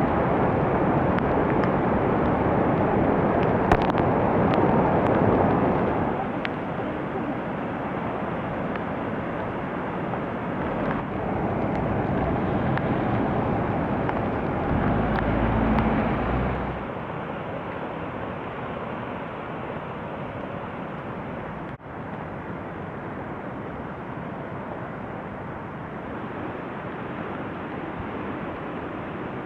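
Swollen river in flood, its water rushing in a steady dense noise that drops in level about six seconds in and again about seventeen seconds in.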